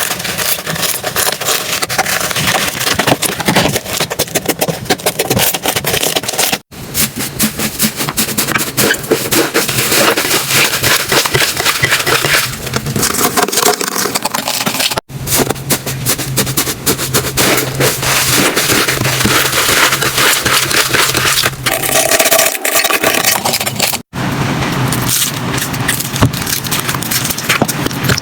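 Slime being squeezed, poked and stretched by hand, giving a dense run of crackling and popping. It comes as several short clips, with abrupt cuts about every eight or nine seconds.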